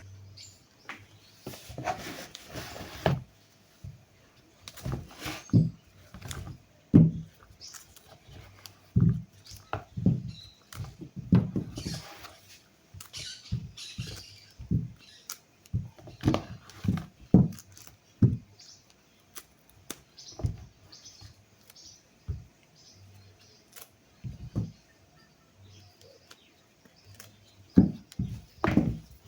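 Irregular knocks and short scrapes of kitchen utensils, about one to three a second with pauses.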